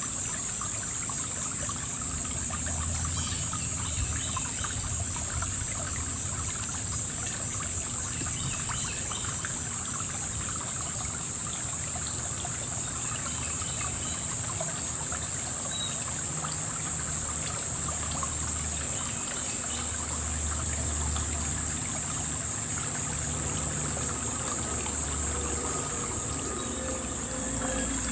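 River water trickling over stones, with a steady high-pitched insect chorus.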